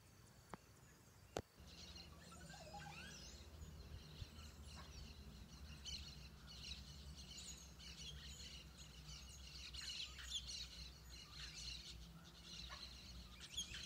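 A sharp click about a second and a half in, then birds chirping and calling over a low steady rumble.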